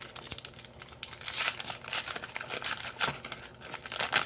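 Foil trading-card pack being torn open and crinkled by hand, an irregular crackling with several louder crinkles.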